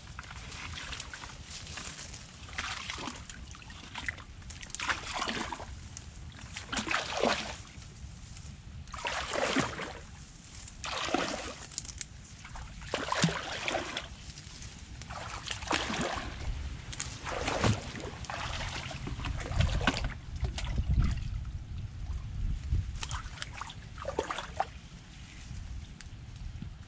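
Legs wading through shallow muddy water: repeated sloshing and splashing, one surge every second or two, over a low rumble.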